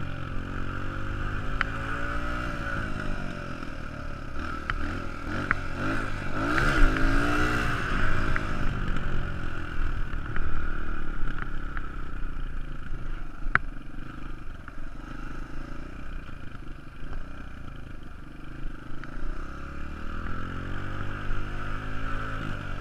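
Suzuki DR-Z125L's small single-cylinder four-stroke engine heard from the rider's seat, revving up and down while riding over grass, with the highest revs about six to eight seconds in. A few sharp clicks stand out over the engine.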